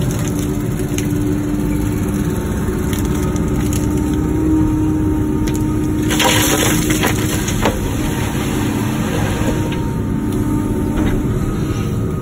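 Wacker Neuson ET145 excavator's diesel engine running steadily under load, with a brief burst of crunching and scraping, as of rock and dirt, about six seconds in.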